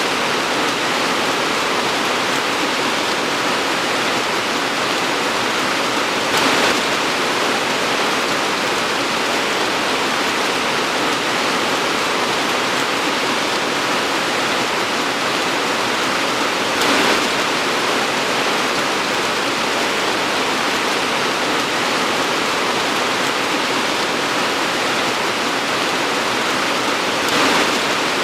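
Torrential rain pouring down in a steady, dense hiss, with three short louder swells about ten seconds apart.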